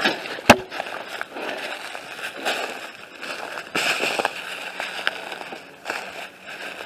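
Footsteps crunching through dry leaf litter and twigs, with branches brushing past and a sharp crack about half a second in.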